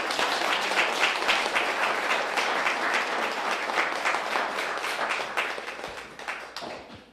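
Audience applauding, a dense steady clapping that dies away over the last second or so.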